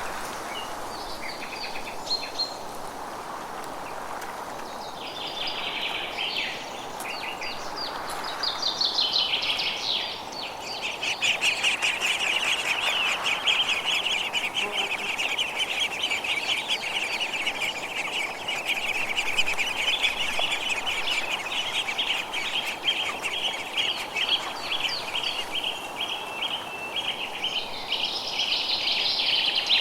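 Forest birds singing: scattered high chirps, then from about ten seconds in a long, fast trill of rapidly repeated notes, over a steady background hiss.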